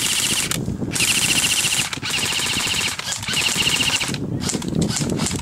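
Airsoft electric gun (AEG) firing on full auto in four long bursts of rapid, even clicking, the last ending about four seconds in.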